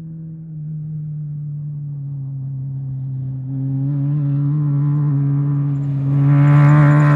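Off-road race vehicle's engine approaching, its steady drone growing steadily louder, with a hiss building over the last few seconds as it closes in.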